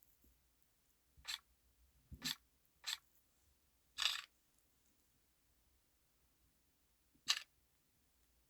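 LG G3 lock-screen unlock sound effects from LG UX 3.0 played back one at a time: five short, crisp synthetic sounds, each under half a second, with gaps of about a second between most of them and a longer pause before the last.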